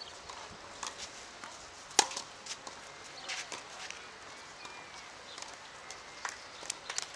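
Tennis rally: a sharp racket-on-ball strike about two seconds in, the loudest sound, with fainter knocks and footsteps on the clay court around it.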